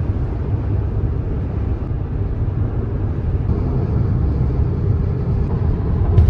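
Steady low rumble of road and engine noise inside a moving car, with a brief knock at the very end.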